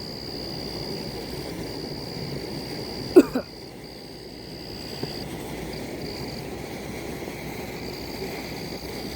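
Outdoor night ambience: insects keep up a steady high-pitched trill over a low even background noise. There is one sharp, brief sound about three seconds in.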